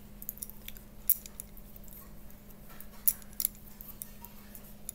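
Metal knitting needles clicking and tapping against each other as stitches are worked by hand: sharp, irregular clicks, the loudest about a second in and about three seconds in, over a faint steady hum.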